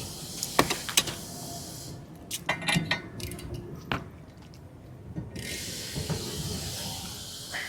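Scattered metallic clicks and knocks of hand tools and parts as the prop nut, washers and propeller are taken off an outboard's prop shaft, with a cluster of quick clicks a little past halfway, over a faint steady hiss.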